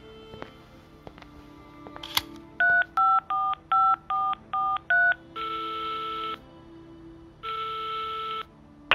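Telephone being dialed: a click, then seven quick touch-tone keypad beeps, followed by two ringing tones about a second long as the call rings through.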